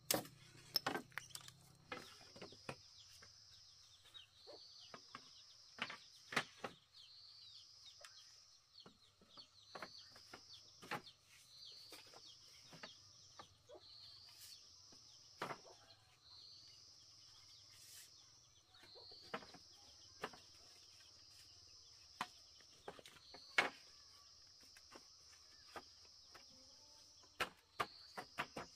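Scattered sharp knocks and clacks of bamboo poles and slats being handled and fitted into a bamboo frame. Behind them a faint high call repeats over and over, each phrase rising and then holding steady for about a second.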